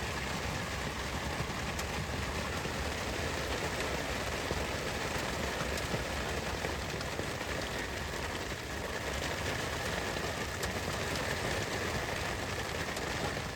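Steady rain falling, with a few sharp drop ticks.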